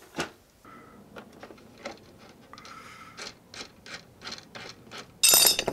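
Small clicks and soft rubbing from hands working thin steel bracing wires and their metal clevis end fittings, then a loud, bright metallic clink near the end.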